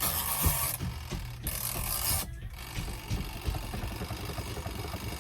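Spin-dryer side of a twin-tub portable washing machine running with a load of wet clothes, its motor giving a steady low hum, with two bursts of hiss in the first two seconds.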